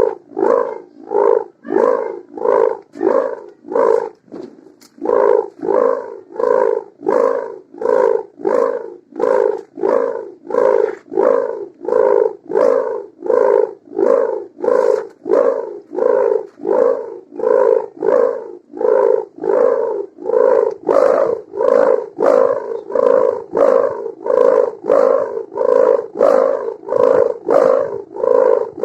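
Kite hummer (sendaren) made of a mika plastic strip joined to gift ribbon, humming with a pulsing, snore-like drone, about one and a half pulses a second. It is briefly fainter about four seconds in.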